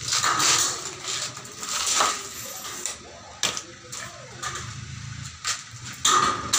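Light metallic clatter and knocks of aluminium window-frame profiles being handled on a workbench, with a few sharp knocks scattered through it; a louder sustained noise begins near the end.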